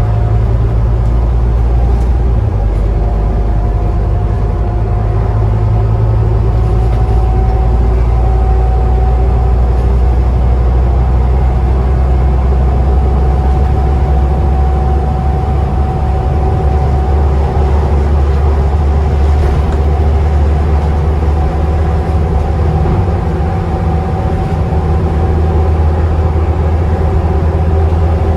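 Scania bus engine running under way, heard from inside the lower deck: a steady low rumble with a thin, steady turbocharger whistle above it that climbs slightly in the first few seconds.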